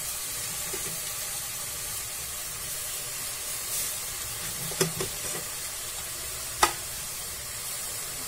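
Spinach and chana dal masala frying in an open aluminium pressure cooker: a steady sizzle, with two sharp knocks about five and six and a half seconds in.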